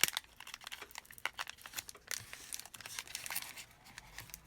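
Foil trading-card booster pack wrapper crinkling and cards being handled, a scatter of light crackles and small clicks.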